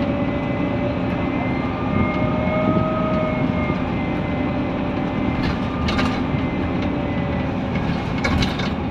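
Cabin sound of a Scania N230UD Omnidekka double-decker bus under way: the steady drone of its five-cylinder diesel engine, with a thin whine that swells and fades about two to three seconds in. A few short rattles come later, from about halfway.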